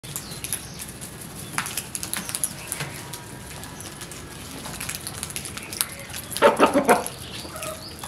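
House crows and chickens feeding on grain on bare concrete: scattered light pecking taps and wing flaps, with a quick run of four loud calls from one of the birds near the end.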